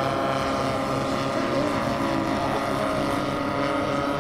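Engines of large radio-controlled model warplanes flying past together. Several engine notes overlap in a steady drone.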